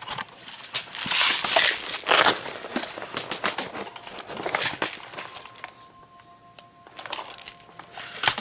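Rustling and crinkling with many sharp clicks and snaps, loudest in the first few seconds. A faint steady two-note tone sounds through the quieter second half.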